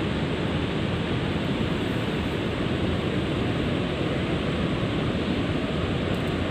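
Steady rushing of water spilling over a weir, a loud, even roar of falling water.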